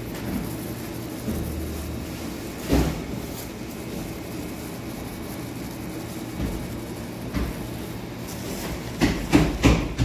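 Steady low hum of bakery machinery, with a single knock about three seconds in and a quick run of sharper knocks near the end.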